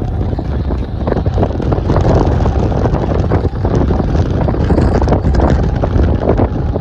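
Strong gusting wind buffeting the microphone: a loud, rough rumble with irregular flutters.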